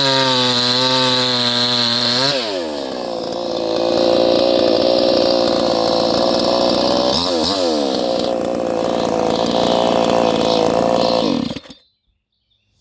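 58 cc two-stroke chainsaw running at part throttle with a wavering pitch, then revved up to high speed about two seconds in. It holds high revs with a brief dip and recovery around seven seconds, then stops abruptly near the end.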